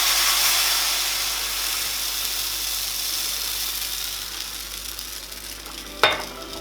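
Pancake batter sizzling in a hot frying pan, loudest at first and slowly dying down. A sharp knock comes near the end.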